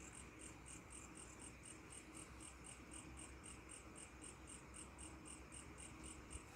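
Crickets chirping at night: a faint, very regular high-pitched pulse, about six chirps a second, with a small click near the end.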